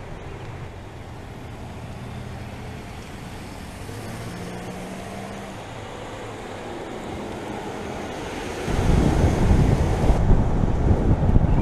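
Car driving slowly, its engine and tyres giving a steady low hum. About nine seconds in, heavy wind buffeting on the outside-mounted microphone suddenly takes over and is much louder as the car picks up speed.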